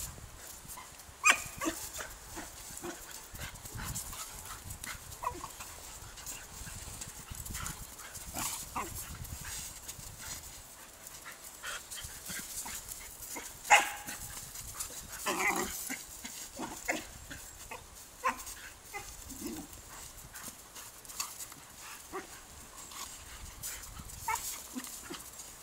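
Two dogs at play, a puppy and a husky-type dog, making scattered short yips and barks among scuffling on bare dirt. The sharpest sounds come about a second in and about halfway through.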